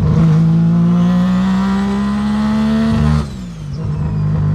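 Three-rotor rotary engine in a Mazda RX-7 pulling hard in gear under boost, its revs climbing steadily for about three seconds. The driver then lifts off and the revs drop quickly.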